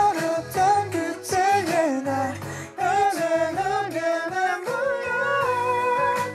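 A song demo playing back with a sung melody line over a backing track, transposed up half a key to try a higher key for the singers.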